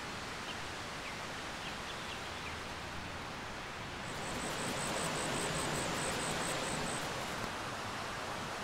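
Steady rushing of a forest river. A few faint chirps come in the first two seconds. From about four seconds in to about seven, a high call pulses about four times a second.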